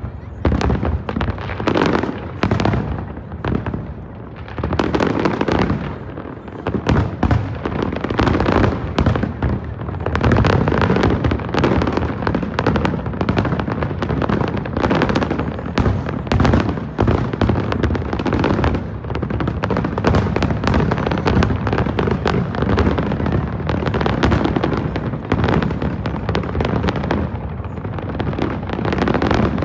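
Fireworks show: a dense, unbroken barrage of aerial shell bursts, bang after bang overlapping with echoing booms and crackle.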